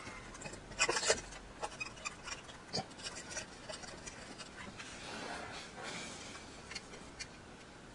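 Small scattered ticks and clicks as a wire and a soldering iron are handled at a turntable motor's solder terminal, with a soft hiss about five seconds in as the solder flux smokes.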